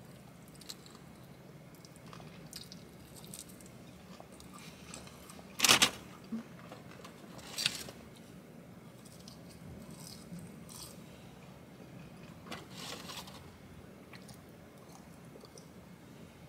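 Close-up sounds of a person chewing fried chicken and French fries, with mouth noises and short crunches. A few sharper, louder sounds stand out, the loudest about six seconds in and others near eight and thirteen seconds.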